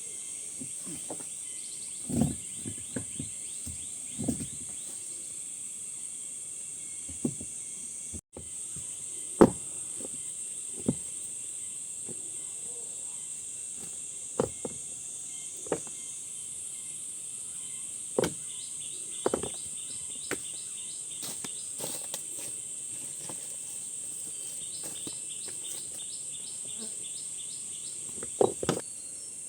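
Insects chirping in a steady chorus, with repeated short trills over a continuous high hiss. Scattered dull knocks every few seconds.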